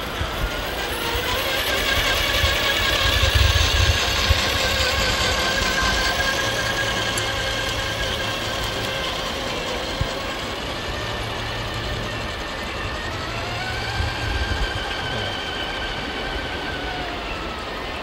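Radio-controlled 8x8 Mercedes-Benz Actros tipper truck's drive whining as it moves, the pitch rising as it speeds up about a second in, easing off, then rising again near the three-quarter mark before dropping away, over a low rumble.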